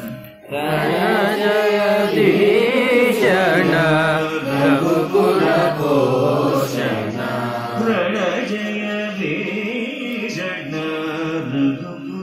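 Male voice singing a Carnatic keertana phrase in Kanada raga, holding long vowels with oscillating gamakas, over a steady tanpura drone. The singing starts about half a second in after a short breath and stops near the end.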